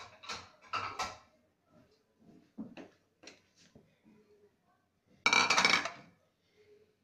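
Steel bowl and spatula clinking and scraping as the bowl of churned butter is handled and tipped to drain off the buttermilk. There are a few light knocks, then a louder metal clatter lasting under a second about five seconds in.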